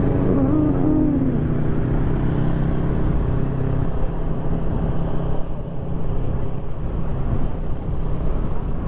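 Motorcycle engine running steadily while riding, with wind and road noise; after about four seconds the engine note drops back and the wind rush is what is mostly heard.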